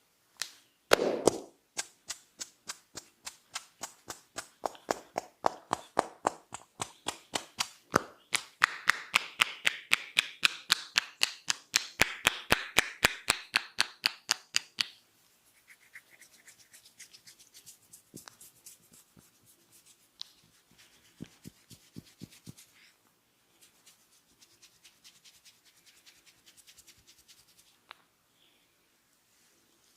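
Head massage percussion: hands striking the head in rapid sharp slaps, about four to five a second for some fourteen seconds, the hardest one at the start and a rustle of hair under them in the second half. Then the strikes stop and softer rubbing and scratching of the hair follows, with a few light taps.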